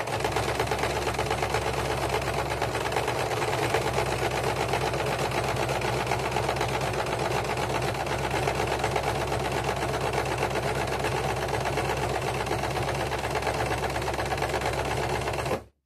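Electric sewing machine running steadily at speed with a fast, even stitching rhythm, sewing two fleece throws together; it stops abruptly near the end.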